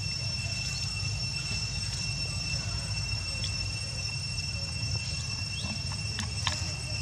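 Steady high-pitched drone of insects, several tones held at once, over a constant low rumble, with a few faint clicks near the end.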